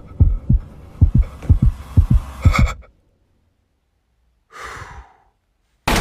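Heartbeat sound effect: deep thumps in lub-dub pairs, coming faster, that stop about three seconds in. After a pause comes a short breathy gasp, and a loud sound begins just at the end.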